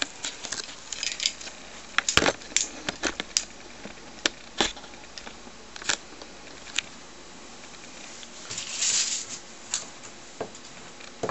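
Handling noise: scattered clicks and light knocks as the camera and small cable parts are moved about, with a short rustle about nine seconds in.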